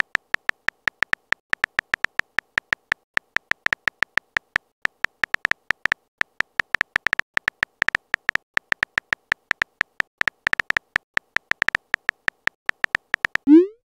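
Phone keyboard typing sound effect: a rapid run of short, high clicks, about six a second, one per letter typed. Near the end comes a short rising bloop as the message sends.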